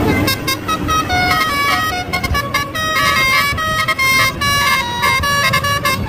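Multi-tone 'telolet' musical air horn on an Indonesian coach, playing a quick tune of notes stepping up and down over the low rumble of the bus's engine.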